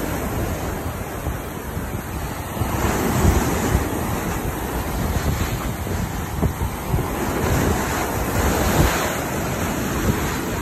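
Surf breaking and washing up over the sand at the water's edge, swelling louder twice as waves come in, with wind buffeting the phone's microphone.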